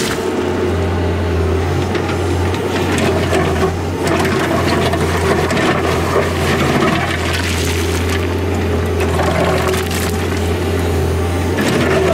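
Hydraulic excavator's diesel engine running as a steady low drone while its steel bucket scrapes, scoops and tips broken rock, with irregular clattering and crunching of stones.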